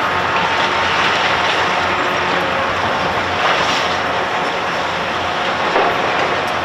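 Heavy construction machine running steadily under load, with a sharp knock near the end.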